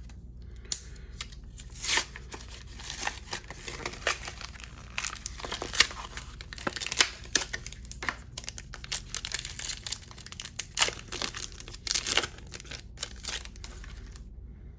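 Crinkling and tearing of Yu-Gi-Oh! Toon Chaos blister-pack packaging and card pack wrappers as they are ripped open by hand, in irregular bursts with a few louder rips about two seconds in and near the end.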